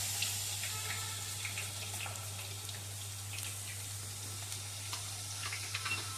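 Thin red-potato wafer slices frying in hot oil: a steady sizzling hiss with many small scattered crackles.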